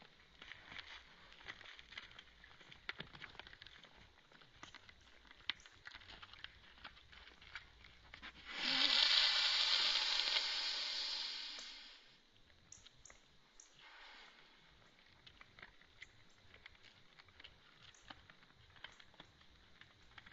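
White-tailed deer buck giving a snort-wheeze: one long, forceful hiss of air blown out through the nose, about three and a half seconds, fading out at the end, then a much fainter second breath. This is a buck's aggressive dominance threat. Faint rustling and light ticks of movement around it.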